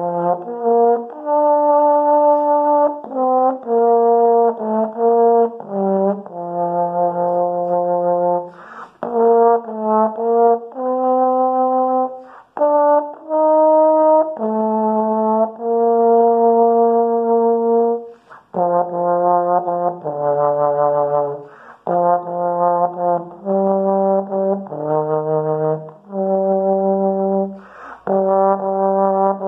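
Solo tenor trombone playing a slow melody of held notes in its middle and low register, with short pauses and breaths between phrases.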